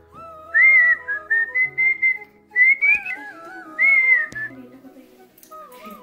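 A high, clear whistle-like melody in several short gliding phrases, loud in the first four and a half seconds, then a softer phrase near the end.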